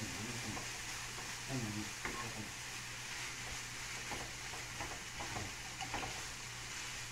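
Ground longaniza sausage sizzling in a nonstick frying pan while a spatula stirs and scrapes through it, the scrapes coming more often in the second half.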